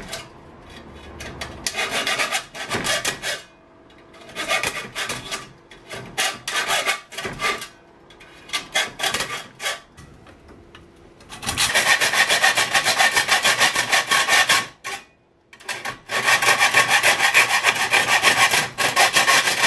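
Hacksaw cutting through a double-walled stainless steel drink bottle, a rasping of quick back-and-forth strokes. For the first ten seconds or so it comes in short bursts with pauses. Then it runs louder and steadier, with one brief break about fifteen seconds in. The metal is hard going: "Stainless steel is really hard. It's probably wearing out my hacksaw teeth."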